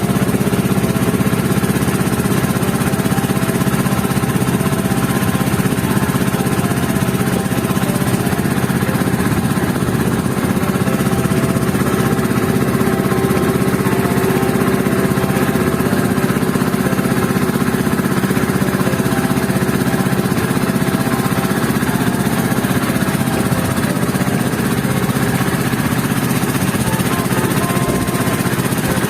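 Small engine of a motorized bangka (outrigger boat) running at a steady speed, with no change in pitch or load.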